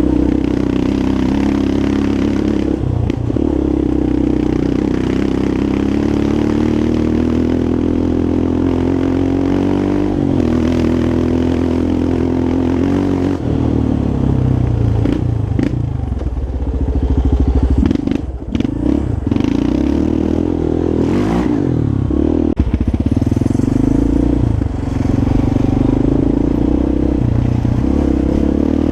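Yamaha Raptor 350 quad's single-cylinder four-stroke engine running under riding load, its revs rising and falling as the throttle is worked. There are brief throttle-offs with rattling knocks a little past the middle.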